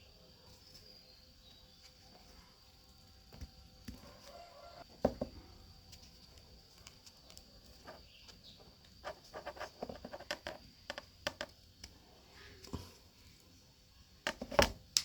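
Light handling noises from cardboard and small parts being worked by hand: scattered taps and clicks, a quicker run of clicks about nine to eleven seconds in, and a sharper knock near the end.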